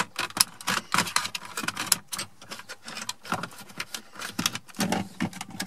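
Irregular plastic clicking and rattling as a VW T5 blower control unit is handled and turned over in the hand, its plastic housing and white dial cam knocking together.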